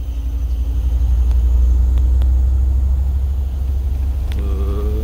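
Bus engine and road noise heard inside the cabin: a steady deep rumble that grows a little louder about a second in.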